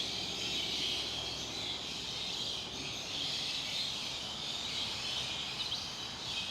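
A steady, high-pitched drone of insects, like a chorus of cicadas or crickets, slightly pulsing.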